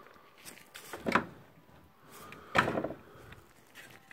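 Handling noise from the camera mount being repositioned: two clunks about a second and a half apart, the second with a short rattle.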